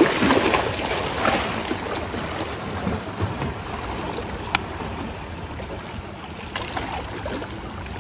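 Sea waves washing against the shore rocks, with wind buffeting the microphone; a single sharp click stands out about halfway through.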